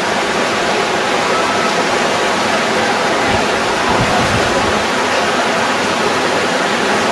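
Floodwater rushing steadily, a loud continuous roar of fast-moving water.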